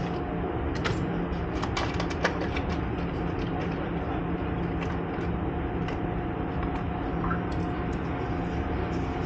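Steady machine hum with a constant tone, with scattered light clicks and taps and one sharper tick about two seconds in.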